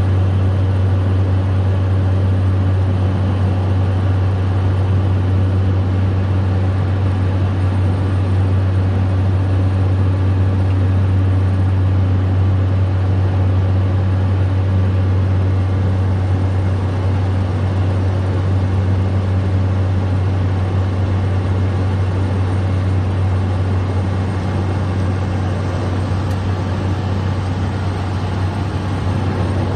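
Cessna 208 Caravan's Pratt & Whitney PT6 turboprop engine and propeller heard from inside the cockpit in flight: a steady, deep drone with a constant hiss of airflow over it.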